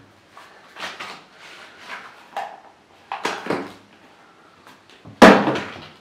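White cardboard product box being handled and opened, with short scrapes and rustles of the lid and inner tray sliding. Near the end comes one sudden loud knock, much louder than the rest, dying away quickly.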